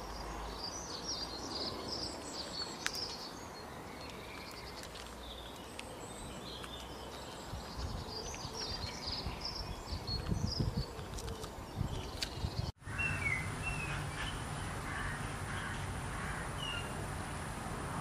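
Outdoor ambience of small birds chirping and twittering, with a low rumble about ten seconds in. A hard cut about 13 seconds in switches to another ambience with a steady high whine under more bird chirps.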